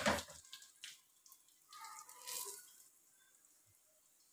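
Metal kitchen tongs clatter against a frying pan as a paratha is turned at the start, with a second click a little under a second in, then a few faint light ticks and near quiet.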